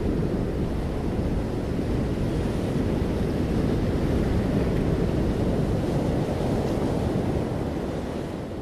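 A steady low rushing noise like surf and wind, with no beat or voice, that begins to fade out near the end.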